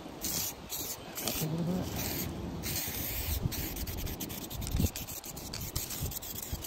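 Aerosol spray-paint can hissing in bursts of different lengths as paint is sprayed onto the bark, the longest burst about two and a half seconds in, with low rustling underneath.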